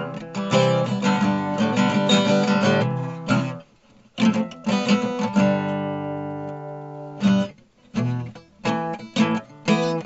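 Background music: acoustic guitar, plucked and strummed, with a brief pause about four seconds in and a long ringing chord after it.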